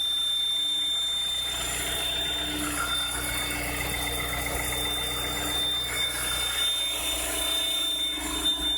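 2010 Volkswagen Caddy 1.6-litre petrol engine idling cold, with a steady high-pitched whistle from the engine bay. The whistle comes mainly on a cold start after the car stands overnight and persists though the timing belt and rollers were just replaced; the owner expects it to go once the engine warms up.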